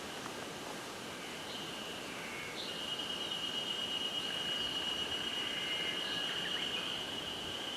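An insect's steady, high-pitched trill, louder from about three seconds in, over an even outdoor hiss.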